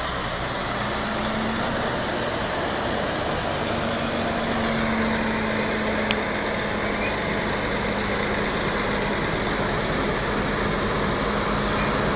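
Heavy diesel semi-trailer trucks running at low speed as they pass and approach, with a steady engine drone throughout. A single sharp click about six seconds in.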